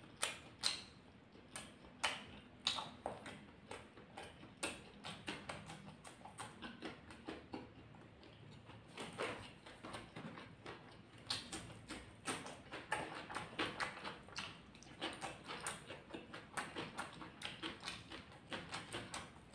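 Close-miked chewing and wet mouth sounds of a person eating fried rice and raw chillies by hand, a string of irregular soft smacks and clicks.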